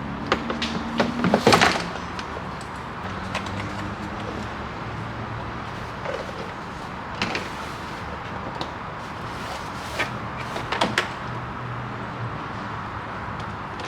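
Scattered clicks and knocks from work on a pickup truck's door: a quick cluster about a second in, a single knock near the middle, and a few more near the end.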